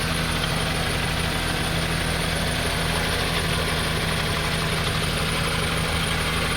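A 2002 Honda CR-V's 2.4-litre four-cylinder engine idling steadily.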